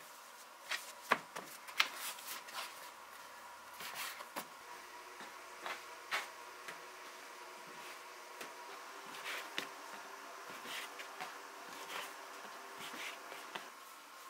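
Irregular light clicks, taps and knocks of hands working with kitchen utensils and food during preparation, the sharpest about a second and two seconds in, over a faint steady hum.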